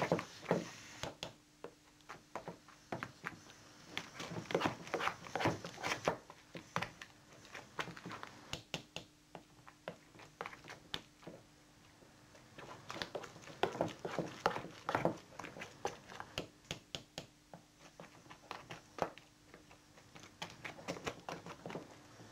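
Hand potato masher working buttered potatoes in a pan: a run of irregular soft knocks and squelches, busier in two spells.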